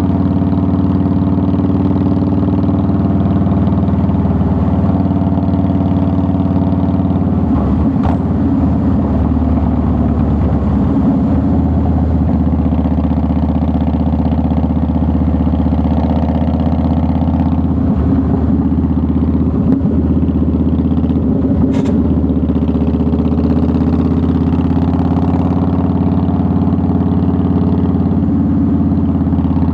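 2009 Harley-Davidson Softail Deluxe's V-twin engine running at a steady pitch. There is a brief unsettled stretch about eight seconds in and a sharp click about twenty-two seconds in.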